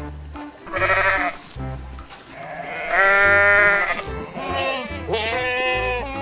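Livestock bleating three times over background music with a steady bass beat: a short bleat about a second in, a long, loud one around the middle, and a wavering one near the end.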